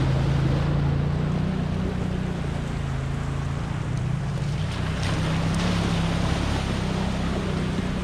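Can-Am side-by-side UTVs driving through a shallow creek: engines running steadily under the rush and splash of water thrown up by the tyres.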